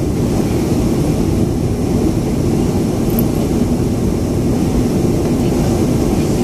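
Steady cabin noise inside a Boeing 737-500 on the ground: its jet engines are running at low power, heard as an even low rumble with a faint steady hum.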